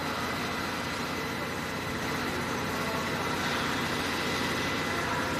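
Steady hum of industrial machinery, with a few faint steady tones running through it.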